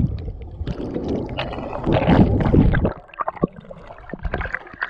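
Muffled rushing and gurgling of water around a camera held underwater. About three seconds in this gives way to quieter, lighter splashing as a dog moves through shallow water.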